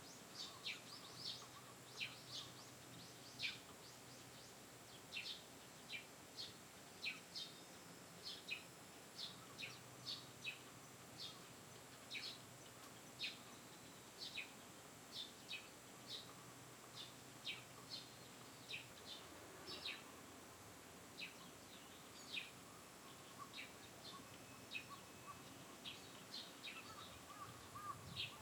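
Small birds chirping outdoors, short sharp chirps coming about once a second over a faint steady background.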